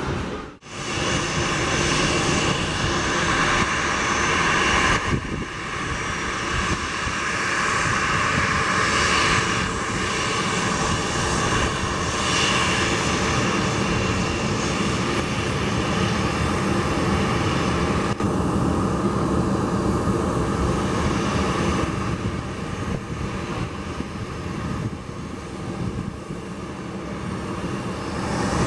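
Boeing 737 jet engines running as airliners land and move along the runway, a steady loud jet noise, with a brief drop about half a second in and abrupt changes where clips are joined.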